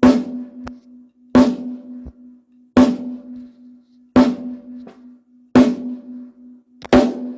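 Snare drum struck with single, evenly spaced strokes for a sound check: six hits, about one every second and a half, each ringing on with a steady tone, and a few faint lighter taps between some of them.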